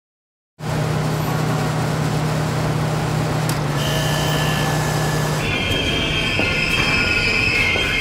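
Subway train running through a station with a steady rumble and low hum, starting suddenly about half a second in. From about five and a half seconds its wheels squeal loudly on the rails.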